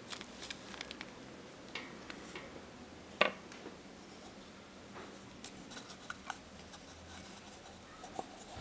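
Faint handling noise: scattered small clicks and taps, with one sharper knock about three seconds in, over a low steady room hiss.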